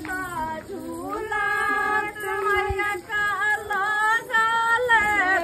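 A high female voice singing a melody, holding long notes that waver in pitch, in phrases with short breaks between them.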